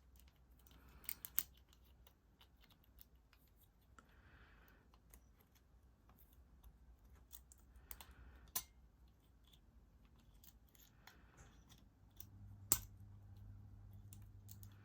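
Faint scratching and ticking of a lock pick and tension wrench working inside a Master Lock 40D padlock, with a few sharper clicks. A low steady hum comes in near the end.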